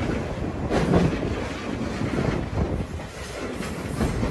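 Sagano Scenic Railway sightseeing trolley train running, heard from on board: a steady rumble of the wheels on the rails with irregular clatter.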